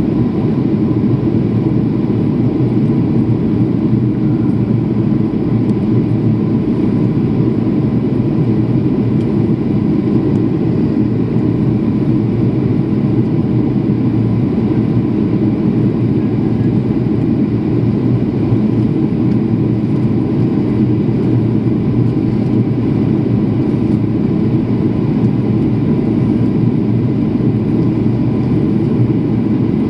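Jet airliner cabin noise in flight: an even, unbroken roar of engines and rushing air heard through the cabin, with a faint steady tone above it.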